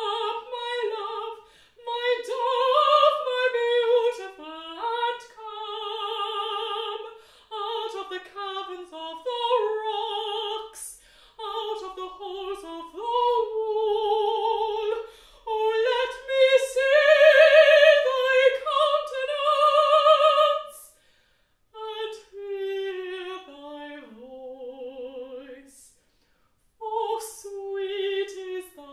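Unaccompanied mezzo-soprano singing in classical style with vibrato, in long phrases broken by brief pauses; the loudest, highest phrase comes about two-thirds of the way through.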